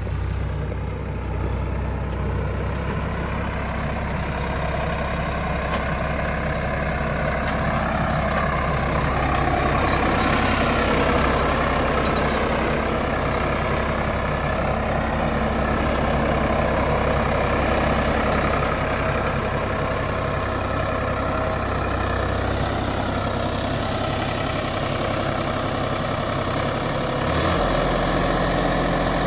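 Heavy diesel machinery engine running steadily. Its pitch wavers a little partway through as the engine speed shifts.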